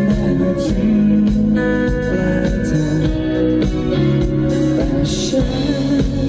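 Live music: an acoustic guitar with a male voice singing through a PA.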